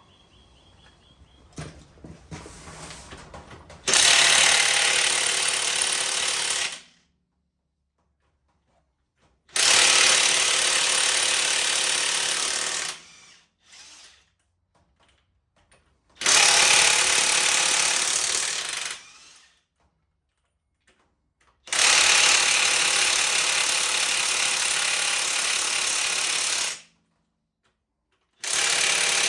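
Impact wrench hammering at bolts, run in five spells of a few seconds each with quiet gaps between, as the rear end of the tractor is taken apart.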